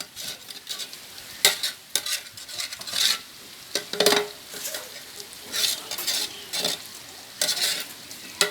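Chicken pieces sizzling as they fry in a pot of curry, while a ladle stirs and scrapes the pot in irregular strokes, roughly one a second.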